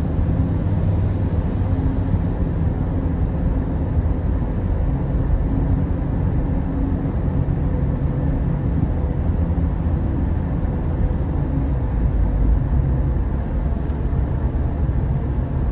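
Steady low rumble of a car's engine and tyres heard from inside the cabin while driving through a road tunnel.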